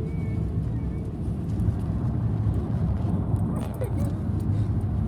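A steady low rumble like a running vehicle's engine and road noise, with a few faint short sounds about three and a half seconds in.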